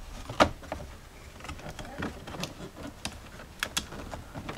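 Scattered light clicks and rattles of hard plastic console trim being handled, as the four-wheel-drive shifter bezel of a Jeep Cherokee XJ is unclipped and pulled out.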